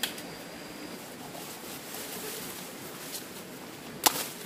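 A single sharp knock or snap near the end, over a faint steady background hiss, with a softer click at the start.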